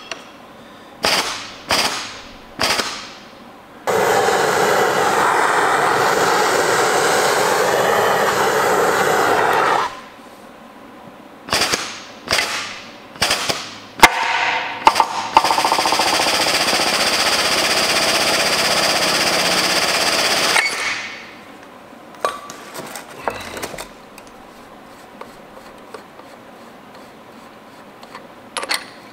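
Pump powering a hydraulic ram puller that is drawing a shaft out of a Caterpillar 1693 engine block. The pump runs in a few short bursts, then steadily for about six seconds. More short bursts follow, with one sharp, loud crack about fourteen seconds in, then a second steady run of about five seconds.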